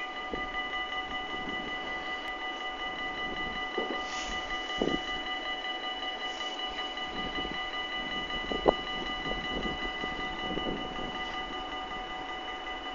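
NS VIRM double-deck electric train standing at the platform, giving off a steady whine of several high tones over a low hum, with scattered light knocks and one sharper click about two-thirds through.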